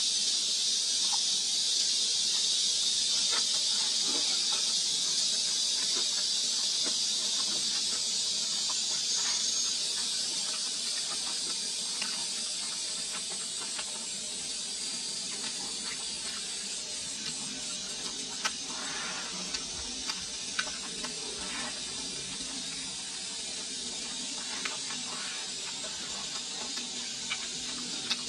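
A steady high hiss, with a person chewing on top: scattered short clicks and smacks of a mouth eating fried chicken, which come more often in the second half.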